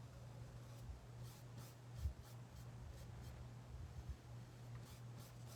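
Faint, short scratchy strokes of a paintbrush laying acrylic paint onto an artboard, several a second with a brief pause in the middle, over a steady low hum.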